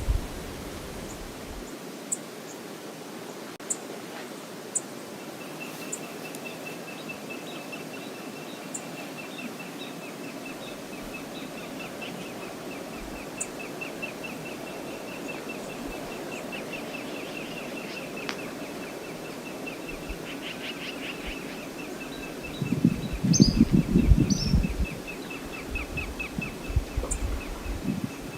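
Steady rush of the river and waterfall at Brooks Falls. Over it a bird or insect keeps up a rapid high trill, with scattered short high chirps. A loud burst of low rumbling comes about three-quarters of the way through.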